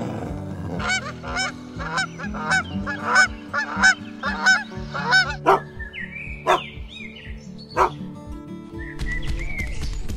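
Geese honking in a rapid series of about two honks a second, then a few sparser calls, over background music.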